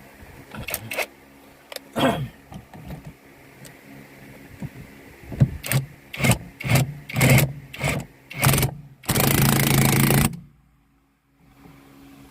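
Car horn sounding in about six short toots and then one longer blast that cuts off suddenly, as the horn is tested during a horn repair. A few knocks and clicks come before it.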